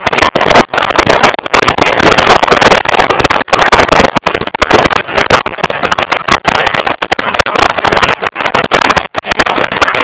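Motorcycle riding at road speed: loud wind rush buffeting the microphone over the engine's running, choppy and cutting out briefly again and again.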